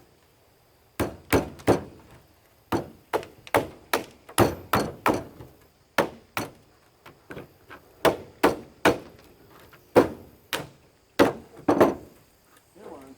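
About twenty hammer blows in uneven bursts, knocking at a part of a dismantled electric lawn mower to drive it loose, each strike sharp with a short ring.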